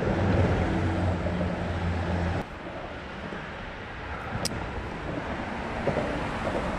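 A motor hums steadily and cuts off suddenly about two and a half seconds in, leaving a softer noise of wind and water, with a single sharp click a couple of seconds later.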